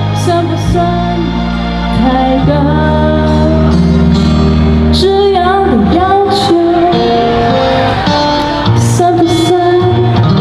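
A young woman singing solo into a handheld microphone, her voice wavering with vibrato on held notes, over steady instrumental backing music.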